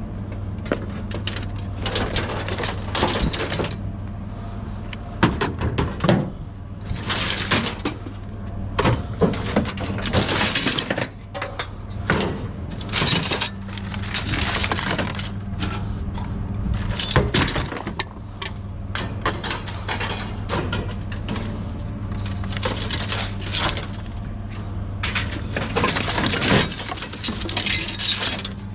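Repeated cracking, snapping and clattering of scrap being broken apart and handled, with a steady low hum underneath.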